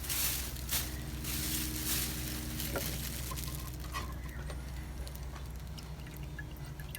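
Diesel fuel running and dripping out of a Racor fuel filter as it is pulled, a hissing patter that tapers off after about three seconds, over a steady low hum.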